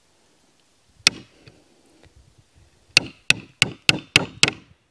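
Hammer striking the head of a steel nail-pulling pliers (Estwing Nail Jack), driving its jaws into a wooden board to get under a small finishing nail. One blow about a second in, then a quick run of six blows at about three a second, each with a short metallic ring.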